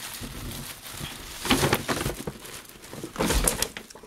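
Tissue paper crinkling and rustling as a hand rummages through a bag stuffed with it, louder in bursts about one and a half seconds in and again near three seconds.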